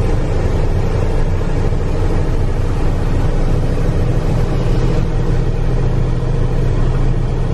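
Delivery truck's engine and road noise heard from inside the cab while driving at a steady speed, a constant low drone.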